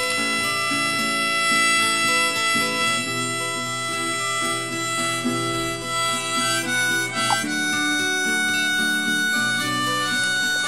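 Background music: an instrumental break of a song, with a harmonica playing the melody over steady accompaniment.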